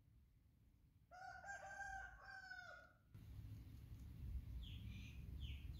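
A rooster crowing once, a single crow of about two seconds that cuts off abruptly. A low rumble follows, with a few short high chirps near the end.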